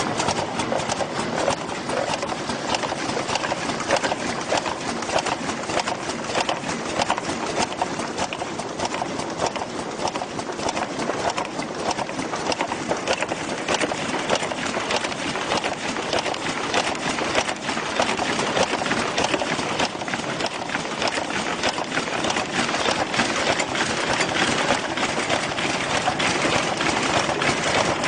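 Automatic horizontal cartoning machine running at speed, a steady dense mechanical clatter of rapid clicks as it packs bottles into cartons.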